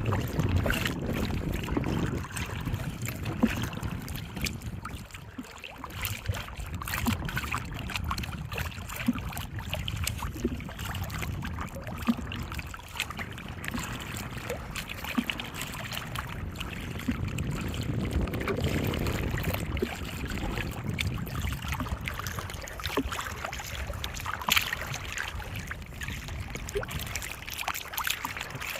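Water splashing and lapping around a small fishing boat on a lake, with a low rumble that swells and fades and scattered small knocks.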